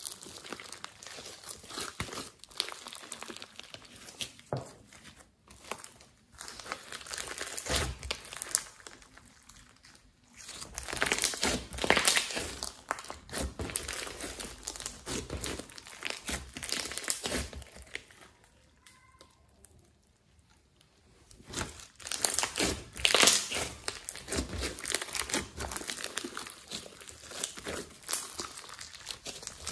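Hands squishing, folding and stretching glossy slime mixed with colourful bits and glitter, giving dense wet clicks and crackles. It goes quiet for a few seconds about two-thirds of the way in, then picks up again louder.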